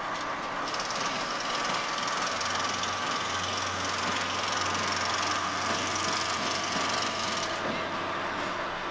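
Diesel locomotive engine running as it moves along the yard past freight wagons: a steady drone with a constant high whine, a deeper hum joining about two seconds in.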